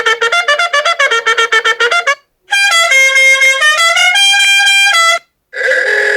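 A trumpet comedy sound effect. It plays a fast run of short, repeated staccato notes, then a phrase of held notes that step up and down in pitch. Near the end comes a final note whose pitch bends.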